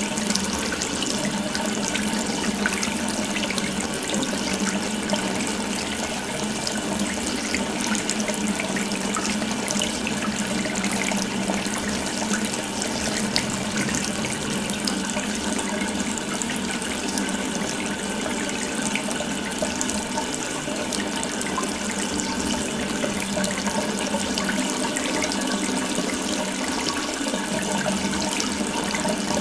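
Water running steadily from an open tap, a continuous splashing rush.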